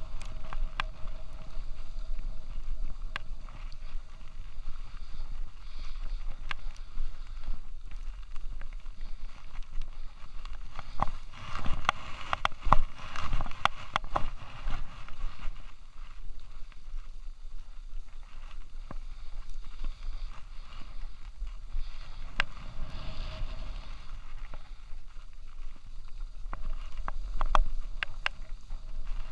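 Skis sliding and scraping over a groomed snow piste, heard through a chest-mounted action camera, with a steady low rumble of wind and movement on the microphone. Scattered clicks and knocks run throughout, densest about twelve to fourteen seconds in and again near the end.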